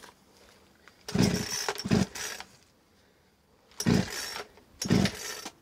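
Chainsaw's pull-cord starter yanked four times, in two pairs, the engine turning over without catching. The saw is hard to start and may be flooded.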